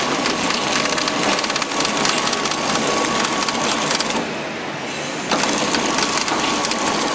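Horizontal flow-wrap packaging machine running after being started: a fast, dense mechanical clatter with a steady whine. It drops away about four seconds in and starts up again about a second later.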